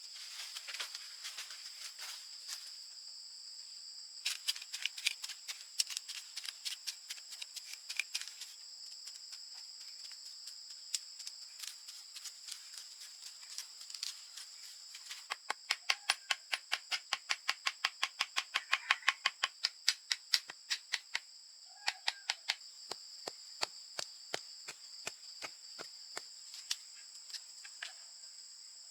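A steady, high-pitched drone of rainforest insects, with scattered sharp clicks or taps throughout and a fast run of louder taps, about six a second, in the middle.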